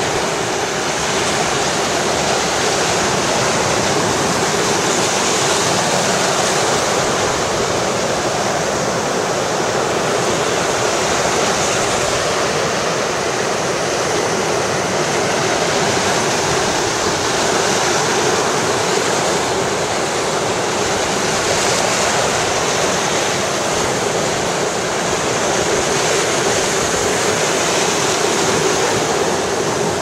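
Ocean surf breaking and washing up a sandy beach: a steady rushing of waves and foam that swells gently now and then.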